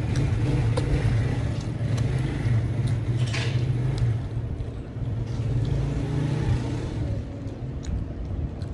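A motor vehicle engine running steadily, a low steady rumble that eases off slightly near the end, with a few faint clicks over it.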